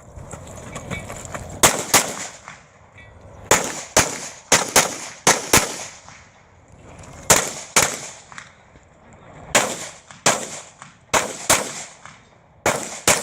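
Pistol shots fired in quick pairs and rapid strings, about twenty in all, with pauses of a second or two between the groups of shots.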